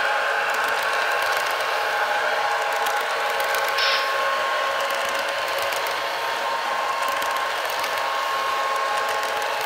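Broadway Limited model PRR GG1 train running fast on curved track: a steady rolling clatter of model wheels on the rails over a steady hum.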